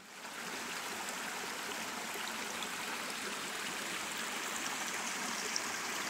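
Shallow, rocky mountain creek running over stones and small spills between boulders: a steady, even rush of water.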